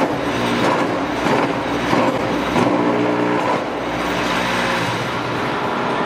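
QTF4-25 hydraulic concrete block making machine running in production, a loud steady mechanical din with scattered knocks. A pitched hum comes in for about a second around the middle.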